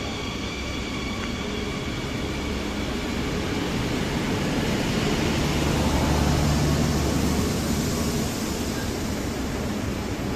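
KTM Intercity diesel multiple unit moving past along the platform: a steady rumble of diesel engine and wheels on rail, with a low engine drone that swells about halfway through and then eases.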